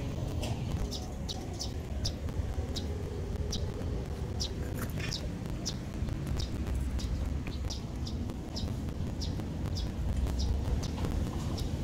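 A bird chirping: short high chirps repeating irregularly, about two or three a second, over a steady low rumble.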